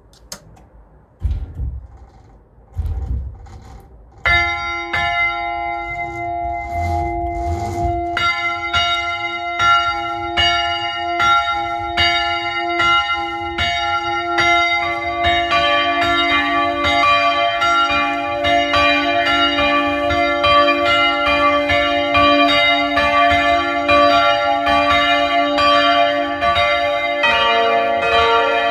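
Full peal of three swinging church bells, heard close up in the belfry. After a few low thuds, the first bell starts striking about four seconds in, a second joins about eight seconds in and the third about fifteen seconds in, and all three ring on together.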